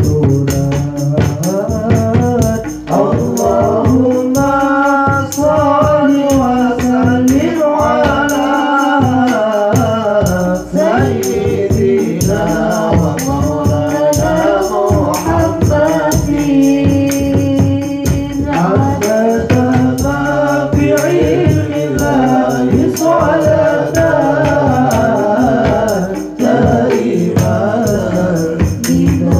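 Sholawat, Islamic devotional song, sung through microphones by several voices over hand-struck rebana frame drums in a steady rhythm, with the jingle of kecer cymbals.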